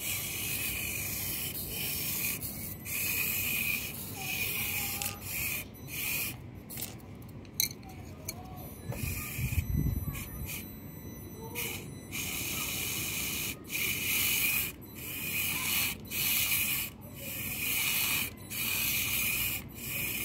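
Micro RC car's tiny electric motor and gearbox whining in short bursts of throttle, starting and stopping many times as the car nudges against and over a chopstick obstacle. A low bump about halfway through.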